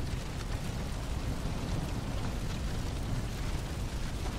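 Fire burning through a wooden building: a steady crackling over a low rumble of flames.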